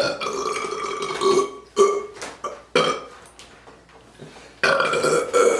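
A woman burping after drinking soda: a long drawn-out burp, two short burps, then another long burp near the end.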